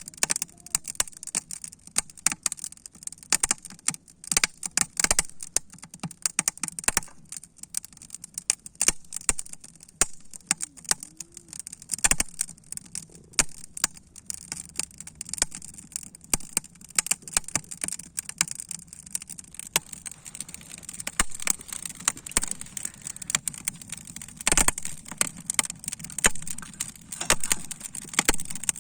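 Wood fire crackling and popping inside a kamado cooking stove, with its sharp snaps echoing in the stove. The snaps come irregularly and densely, with two louder pops about twelve seconds in and again near twenty-five seconds.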